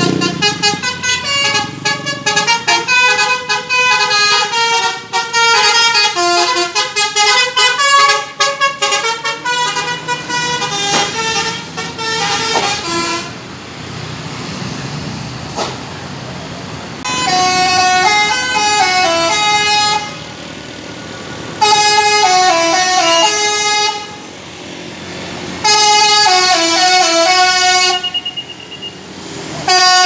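Tour buses' Basuri telolet multi-tone horns playing quick stepping melodies. A long, busy run of notes fills the first dozen seconds; after a few seconds of bus engine and traffic, the same short horn tune comes three times in a row.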